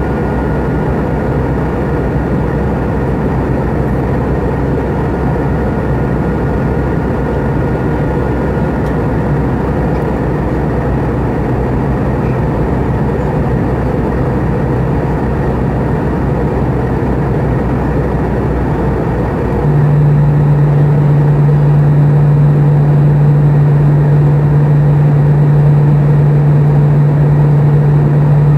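Airbus A320 in flight, heard from a cabin window seat beside the engine: a steady engine and airflow drone. About twenty seconds in, a strong low hum sets in and the noise steps up louder, then holds steady.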